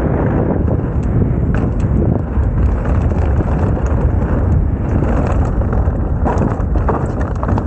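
Mountain bike rolling fast down a dirt trail: a steady low rush of wind on the microphone and tyre noise, with frequent clicks and clatters from the bike rattling over bumps.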